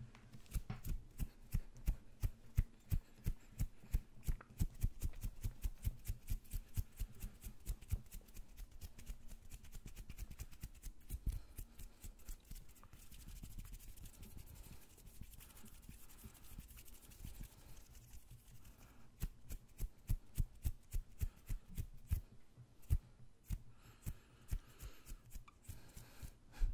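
Fast hand sounds close to a microphone: quick runs of skin-on-skin taps and flicks, several a second, with thuds as the hands pass the mic. A stretch of steady rubbing hiss comes in the middle, then the quick taps return.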